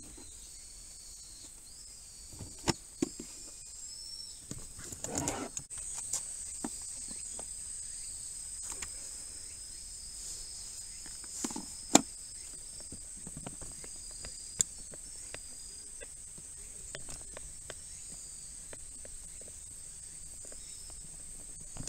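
Insects chirring steadily at a high pitch, with scattered knocks and clicks from a plastic tyre-repair kit case being handled and set down; one sharp click about halfway through is the loudest sound.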